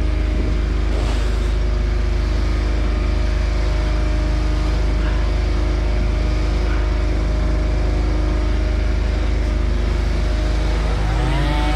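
An engine idling steadily, a constant low hum. Near the end a second motor joins with a wavering pitch.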